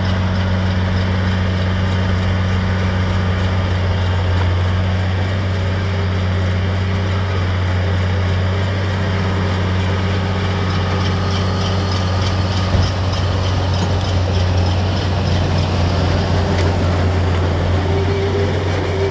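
A 180 hp chipped Steyr tractor's engine running steadily under load as it drives a Vicon RV4216 round baler through the PTO shaft, the baler picking up and pressing wheat straw with its chopping knives engaged. The machinery adds a light rattle over the steady engine hum, with a single knock about thirteen seconds in.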